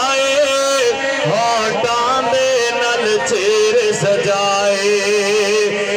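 A man singing a Punjabi naat through a PA system, drawing out long wavering notes with no clear words between verses, while a second, lower tone is held steady beneath in the second half.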